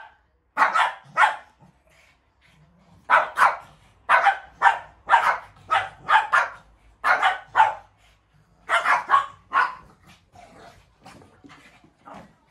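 Shih tzus barking at each other in a play fight: short, sharp barks in quick runs of two or three, with a pause about two seconds in. After about ten seconds the barking gives way to faint sounds.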